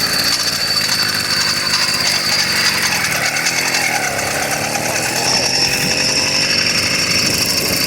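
100cc two-stroke motorized-bicycle engine running while riding, with a buzzing, chainsaw-like note; the revs dip about three seconds in, then climb again.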